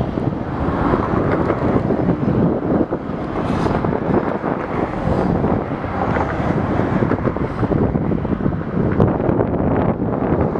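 Wind buffeting the microphone, with a freight train of tank cars rolling past underneath.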